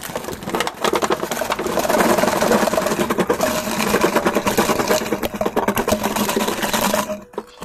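Plastic surprise-egg capsules and small plastic toy cars pouring out of clear plastic jars and clattering onto a table in a dense, continuous rattle that stops suddenly about seven seconds in.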